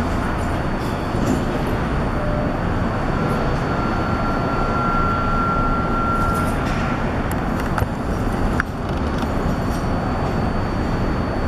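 New York City subway train rolling slowly through curved yard trackwork, a steady rumble with a high wheel squeal held for a few seconds near the middle, then two sharp clicks.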